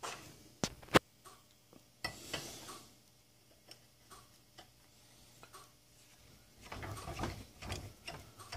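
Sharp metal clinks as a steel tap and T-handle tap wrench are handled at a bench vise, the loudest about a second in, followed by light ticks. Near the end, a threaded steel rod rattles and scrapes as it is screwed by hand into the freshly tapped hole.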